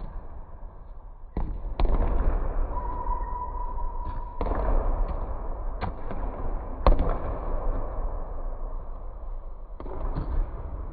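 Basketballs bouncing on a hardwood gym floor and hitting the rim: irregular sharp, echoing thuds over a steady low rumble. A single steady squeak lasting about a second comes about three seconds in.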